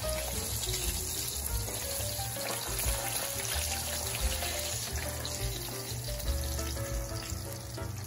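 Atlantic mackerel fillets sizzling as they fry in oil in a pan, a steady hiss, under background music with a melody and bass line.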